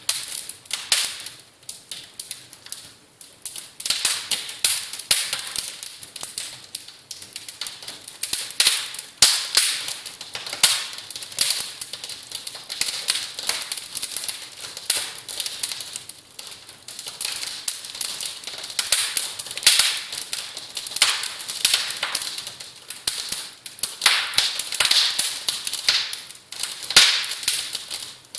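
Continuous irregular crackling: dense, sharp clicks and snaps, mostly high-pitched, with no steady tone.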